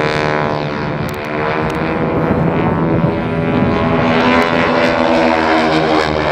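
Formation of four radial-engine propeller aircraft flying overhead, their engines running together loudly, the pitch sliding down in the first second or so and rising again about four seconds in.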